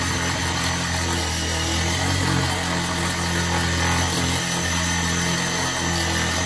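Metabo 5-inch variable-speed angle grinder running steadily at low speed, its diamond core bit grinding a hole into a granite countertop with water around the bit.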